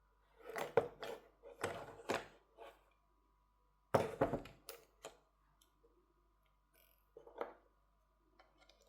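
Knocks and clicks of hands and a tool working at a phone's motherboard inside its frame, which is still held by a forgotten screw. They come in short clusters about a second in, near two seconds, around four seconds and once more near seven and a half seconds.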